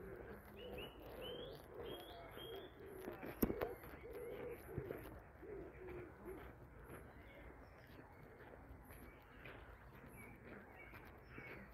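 A pigeon cooing, a run of short low notes through the first half, with small birds chirping higher up and footsteps on a dirt path.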